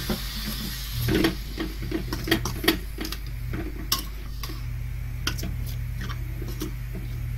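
Steel perforated ladle stirring vermicelli in a metal kadai, making irregular light clicks and scrapes against the pan, over a low steady hum.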